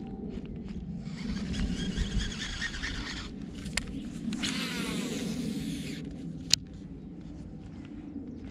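Baitcasting reel's spool whirring as casts pay out line, twice, the second whir falling in pitch as the spool slows, then a sharp click. A steady low rumble runs underneath.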